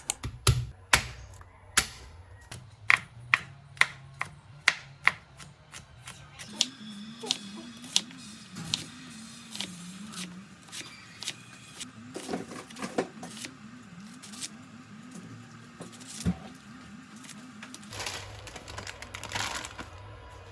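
A series of sharp, separate clicks or knocks, one or two a second in the first few seconds and then fainter and more scattered.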